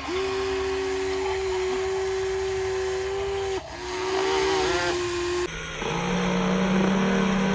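Small electric gear motors of an RC toy excavator whining in steady tones, cutting out and starting again a few times, each run at a slightly different pitch.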